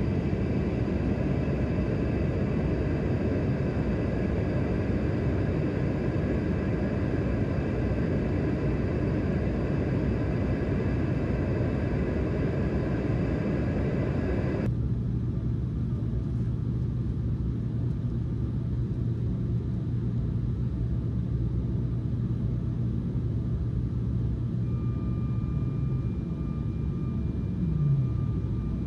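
Steady rumble of an airliner's engines. About halfway through it cuts abruptly to a quieter rumble with a steady low hum, which glides down in pitch near the end.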